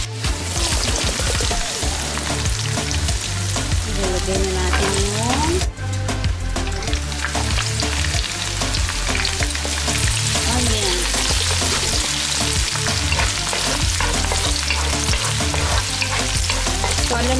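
Oil sizzling in a nonstick wok as garlic, ginger and chopped red onion fry, with a wooden spoon stirring and scraping through them. The sizzle dips briefly about six seconds in.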